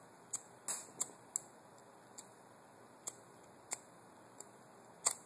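A cheap disposable butane lighter being clicked several times: about seven short, sharp clicks at irregular spacing.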